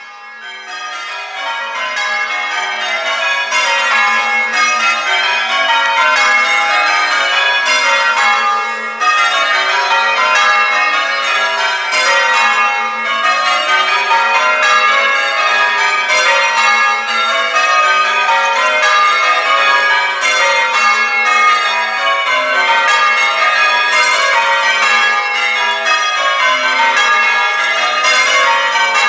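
A ring of church bells being change-rung, the bells striking one after another in constantly shifting order. The ringing rises in level over the first couple of seconds, then goes on steadily.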